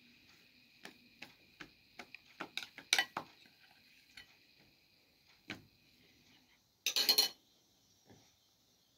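Metal spoon clinking and scraping against a small glass bowl: a run of quick taps that grow louder, a few single clicks, then a brief louder clatter near the end.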